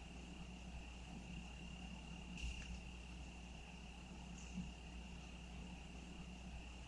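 Crickets trilling in one steady, unbroken high-pitched tone, faint, with a brief soft rustle about two and a half seconds in.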